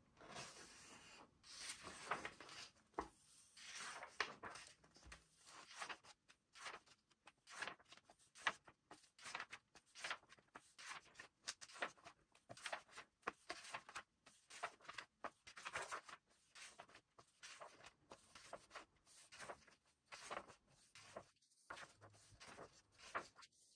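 Irregular rustling, clicks and taps of hands handling and opening toy packaging, plastic and cardboard, in short bursts with brief pauses.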